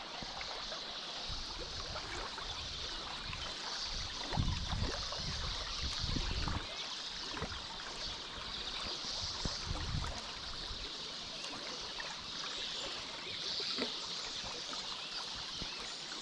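Shallow stream water running steadily over a gravel riffle, a continuous watery rush. A few low rumbles swell up in the middle.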